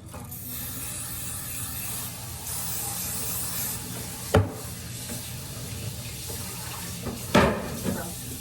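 A steady rushing hiss like running water, with a sharp knock about four seconds in and a louder thump near the end.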